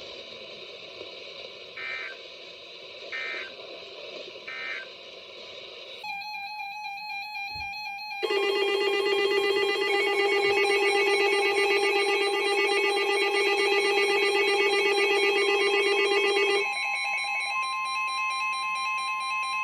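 Emergency Alert System data signals and alert tones from a weather radio broadcast. First come three short data bursts about a second apart, the end-of-message code of a warning. After a few seconds, electronic alert tones begin: a loud warbling, ringing tone for about eight seconds, then steadier high tones that lead into the next warning.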